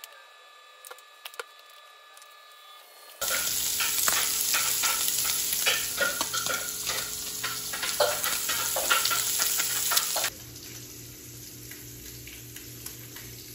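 Hot oil sizzling and crackling in a frying pan on the stove. After a quiet start with a couple of light clicks, a loud, dense sizzle with many crackles begins abruptly about three seconds in, then drops to a quieter, steady sizzle about ten seconds in.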